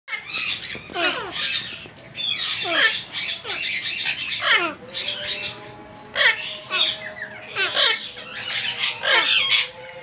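Alexandrine parakeets calling: a rapid string of loud, harsh squawks and chatter, many of the calls sweeping quickly downward in pitch.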